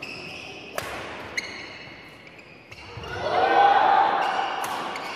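Badminton rally: sharp racket strikes on a shuttlecock and squeaks of shoes on a gym floor. About three seconds in, voices rise in a loud exclamation, the loudest sound here.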